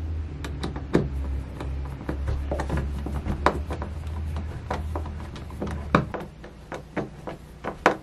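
Hand screwdriver turning a screw into a closet door hinge by hand: a string of irregular sharp clicks and creaks as the screw is driven, over a low steady hum that stops about six seconds in.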